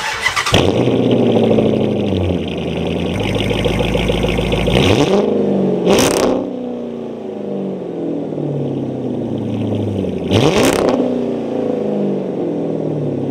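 2008 Dodge Charger R/T's 5.7 L Hemi V8 running through a modified mid-muffler-delete exhaust. It surges near the start, settles to idle, and is revved sharply twice, about six and ten seconds in.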